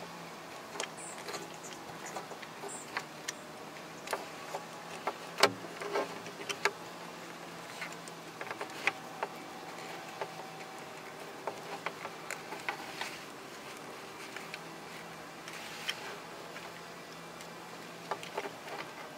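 Scattered plastic clicks and taps as the parts of a plastic chest-mount harness and its phone clamp are handled and fitted together, the sharpest click about five seconds in, over a steady low hum.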